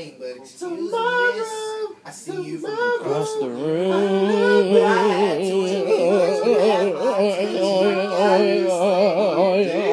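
Singing from a film soundtrack playing on a television: short phrases at first, then from about three and a half seconds in a sustained voice with a strong wavering vibrato over a steady low held note.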